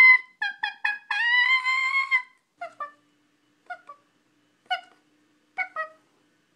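A young woman's voice imitating animal calls. A quick run of short, rising calls leads into one long held call in the first two seconds, then come short, quieter two-note calls about once a second.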